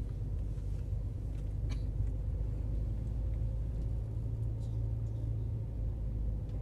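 A car's engine and tyre noise heard from inside the cabin while driving: a steady low rumble, with the engine hum coming up a little stronger around the middle.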